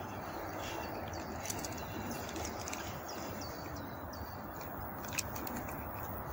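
Small birds chirping in short, repeated falling notes over a steady outdoor background rush, with one sharp click about five seconds in.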